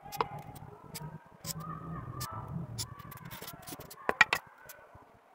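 Kitchen knife chopping and crunching through styrofoam on a wooden block: a run of sharp clicks and crunches, with three louder knocks a little after four seconds in.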